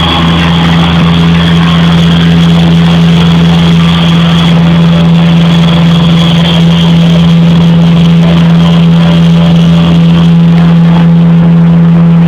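Live rock band's amplified guitars and bass holding one loud, sustained distorted low note, with a steady high feedback tone above it, at the close of a song.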